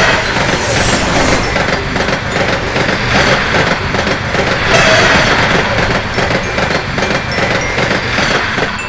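A train passing at speed: a loud, steady rumble of rolling wheels with a rapid clatter of knocks over the rail joints.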